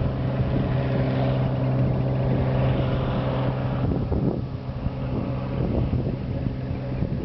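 Cessna floatplane's piston engine and propeller at full power on its takeoff run, a steady drone across the water; a higher hiss fades after about four seconds as the plane draws away. Wind buffets the microphone.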